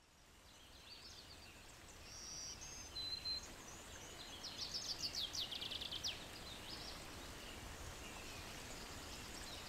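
Outdoor forest ambience: birds chirping and trilling over a steady background hiss. It fades in from silence, and there is a brief flurry of rapid chirps around the middle.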